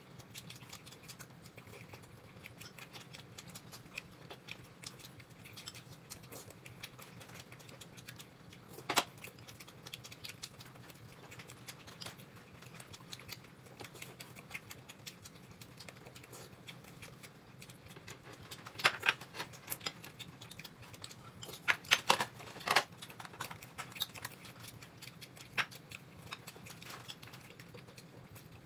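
Quiet eating sounds: chewing with many small scattered ticks, and a few sharper clicks of utensils against a dish, one about nine seconds in and several close together in the second half.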